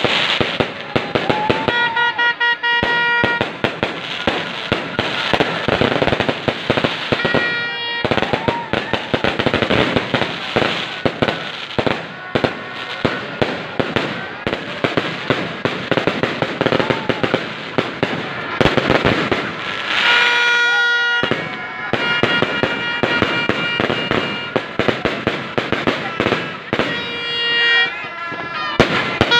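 Fireworks going off in rapid succession: a dense, continuous crackle of sharp bangs and pops. Several times a steady held tone with overtones sounds over the crackle for a second or so.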